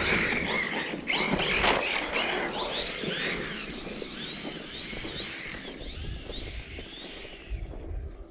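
Brushless electric motor of a 1/10-scale ARRMA Siren 6S RC truck whining up and down in quick repeated swoops as the throttle is worked on snow. It grows gradually fainter and stops shortly before the end.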